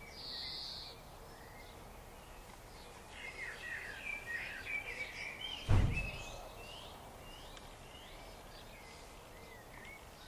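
Garden birds singing, with a run of chirping and warbling calls in the middle, over a steady outdoor background. A single sharp thump cuts in about six seconds in, and a short hissing burst comes right at the start.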